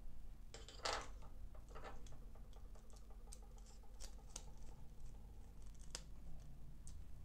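Small screwdriver turning the screws of the green screw-terminal block on a W1209 temperature controller board, with handling of the board and wires. Faint metallic scraping and clicking, with a louder brief rustle about a second in and a run of small ticks after it.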